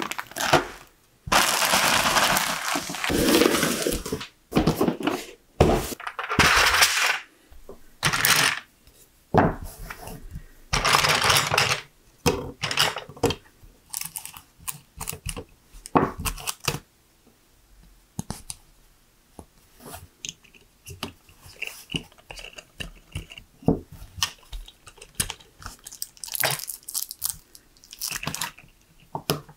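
Hands building with LEGO Technic pieces: plastic parts rattling and rustling in bouts of a second or more, then many short clicks and snaps as pieces are pressed and fitted together.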